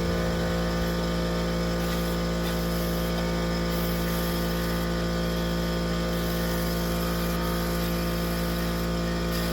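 An electric power tool's motor running at a steady speed, with a constant hum. It runs unchanged throughout, with no load changes heard.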